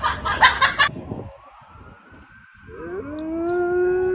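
A quick run of sharp knocks, then about three seconds in a dog starts howling: the pitch rises and settles into one long held howl.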